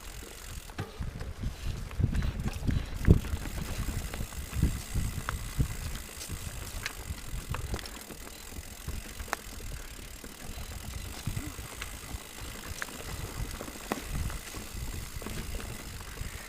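Mountain bike being ridden over a trail: a rough low rumble with irregular knocks and rattles from the bike. The loudest knock comes about three seconds in, and scattered sharp clicks run throughout.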